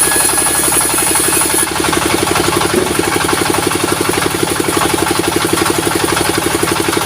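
A sawmill's engine running with a fast, even chugging. A high hiss over it stops less than two seconds in.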